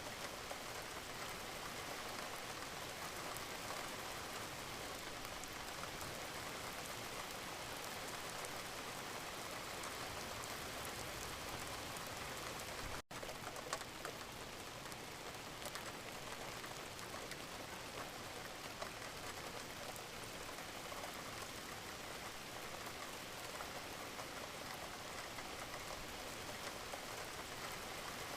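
Steady, gentle rain falling, with individual drops ticking through the even hiss. There is a momentary dropout about halfway through.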